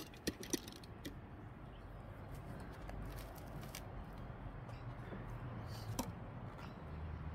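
Small clicks and taps of die-cast model cars being set down on a display stand: a few quick ticks in the first second and one more about six seconds in, over a faint steady background.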